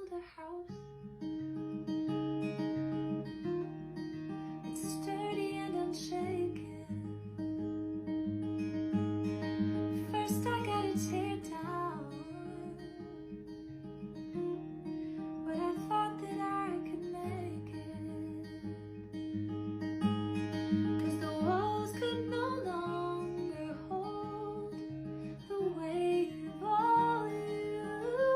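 Background music: acoustic guitar playing held chords that change every few seconds, with a sung melody gliding over them.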